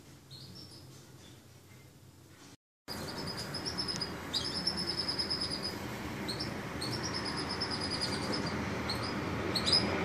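A canary singing high, trilled phrases about a second long, repeated with short gaps, over a steady background hiss. These follow faint chirps and a brief gap of silence about three seconds in.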